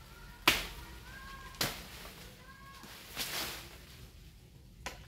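Sharp chopping strikes on tree branches during pruning: two hard strikes about a second apart, then a longer rustling crash a little past halfway, and a light click near the end. Faint bird chirps sound in between.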